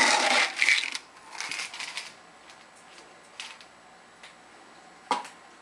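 Rustling and handling noises for about the first two seconds, then a few light clicks and one sharper knock about five seconds in.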